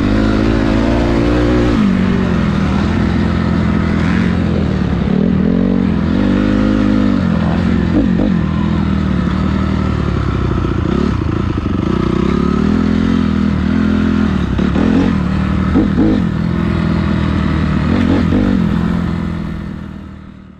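Motocross bike's engine heard close up from the onboard camera, running at low speed with the throttle rising and falling, with a few sharp knocks along the way. The sound fades out near the end.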